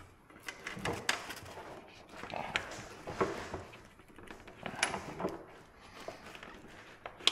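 Handling noises: irregular clicks, light knocks and short scrapes, a few a second, with no machine running.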